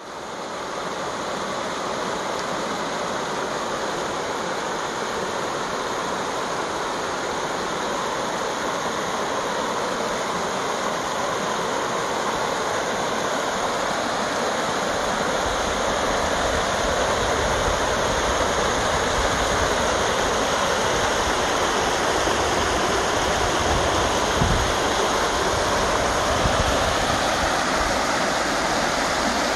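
Water rushing steadily where a small creek cascades over rocks into a fast river, growing a little louder and fuller in the second half.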